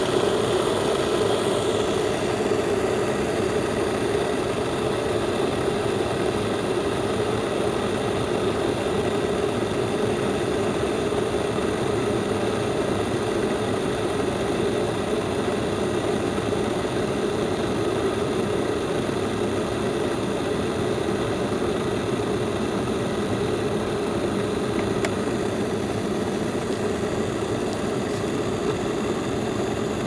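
Aizhufu glass electric kettle heating water before the boil: a steady rushing rumble of bubbles forming and collapsing on the hot base.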